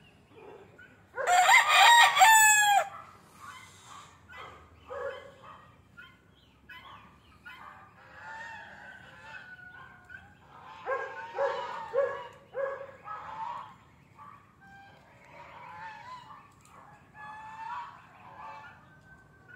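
A rooster crows once, loudly, about a second in. Softer clucks and short calls from the farmyard fowl follow.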